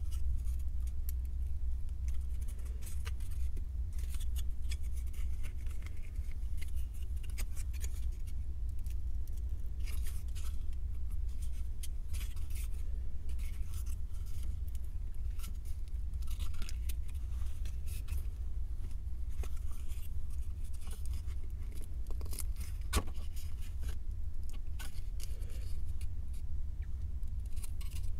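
Close-up handling of 3D puzzle pieces: irregular small clicks, taps and scrapes scattered throughout, over a steady low hum.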